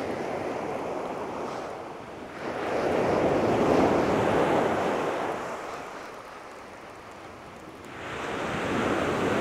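Sea waves breaking and washing up a shingle beach. The surf swells about two and a half seconds in and again near the end.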